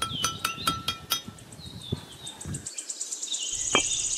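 Birds chirping and twittering in quick high calls that grow denser toward the end. Before that, a short run of light clinking, chime-like notes, about five a second, stops about a second in.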